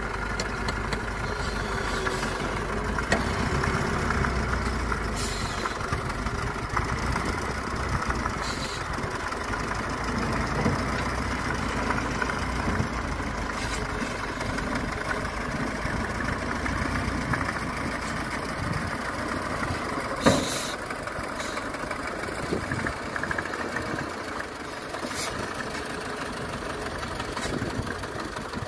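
Homemade logging truck's diesel engine running steadily at low speed as the truck, under a full load of timber, crawls along a steep dirt slope. A few sharp clanks sound over it, the loudest about two-thirds of the way through.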